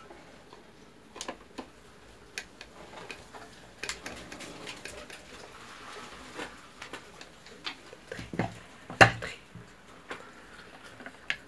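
Scattered clicks and creaks of a screwdriver driving the last screw into the plastic base of an electric citrus juicer, with the plastic housing being handled. A louder knock about nine seconds in as the juicer is stood upright and set down on the workbench.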